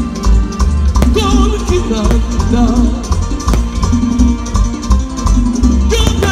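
Live Latin dance music from a stage band, played loud through a sound system, with a heavy bass beat and a wavering melody line. A few sharp cracks cut through it.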